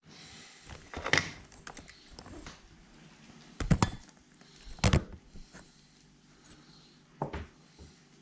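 A few separate knocks and thumps, about four, spread over a quiet room background.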